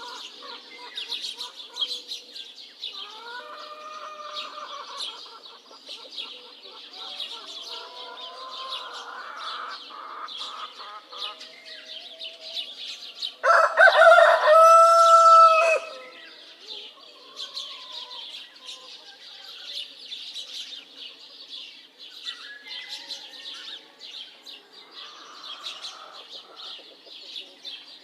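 A rooster crows once, loudly, for about two and a half seconds, about halfway through, over a steady chorus of small birds chirping. Fainter, longer calls come a few times before it.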